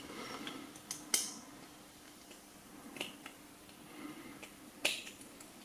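Small metal clicks and scrapes from a tool prying at the retaining clip on the back of a euro cylinder lock. Three sharper clicks stand out, the loudest about a second in, with fainter ticks between.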